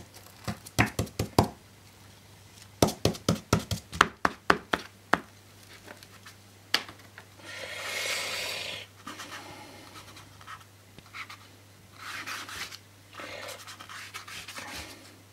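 Paintbrush work with black paint: two runs of quick sharp taps in the first five seconds, then scratchy brush strokes dragged across paper.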